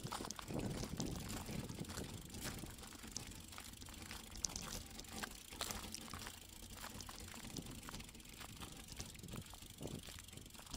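Wind and road noise picked up by a rear-facing Cycliq camera mounted on a moving bicycle: a steady low rumble with scattered small clicks and rattles as the tyres run over loose gravel, one sharper click about four and a half seconds in.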